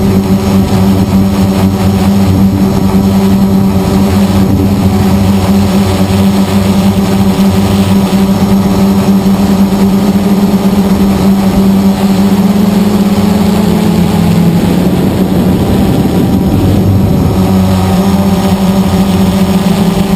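Blade 350 QX quadcopter's four brushless motors and propellers buzzing steadily, heard close up from the camera on board. About fourteen seconds in the pitch dips and wavers for a few seconds, then settles back to a steady hum.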